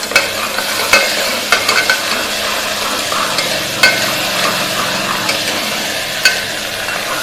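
Onions and ginger-garlic paste sizzling in hot oil in a pressure cooker pan, with a spoon being stirred through and clicking against the metal a few times.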